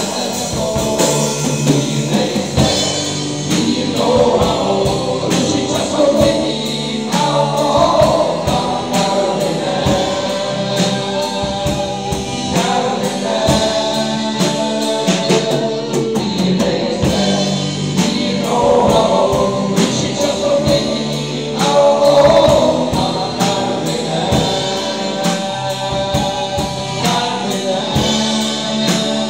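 Rock band playing live: male voices singing over electric guitars with a steady beat.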